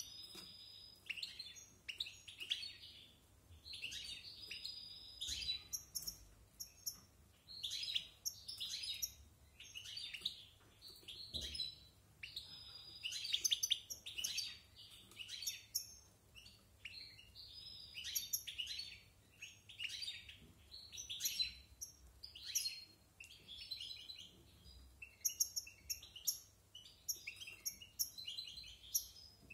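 European goldfinch, a bird of about a year, singing its varied song in a cage: fast, almost unbroken runs of twittering chirps and trills with only brief pauses.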